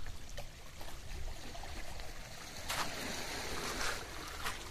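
Sea surf washing on a rocky shore, swelling up about three seconds in, over a low rumble of wind on the microphone, with a few light clicks.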